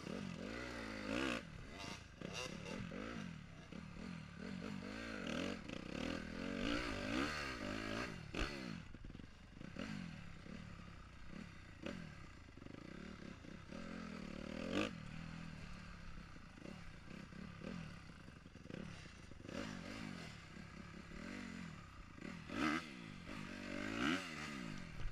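Dirt bike engine ridden over rough ground, revving up and dropping back again and again as the throttle is worked, with several sharp knocks and clatter from the bike over the bumps.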